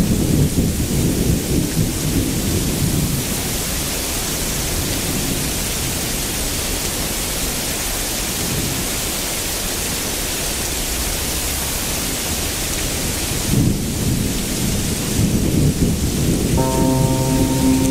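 Wind rushing and buffeting across the microphone of a moving boat: a steady hiss with an uneven low rumble that swells again near the end. Music with held notes comes in about a second before the end.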